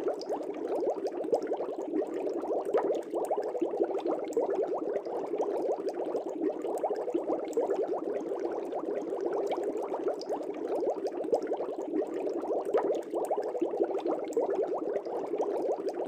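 Aquarium water bubbling steadily: a dense, even stream of small bubbles gurgling and popping, with no pauses.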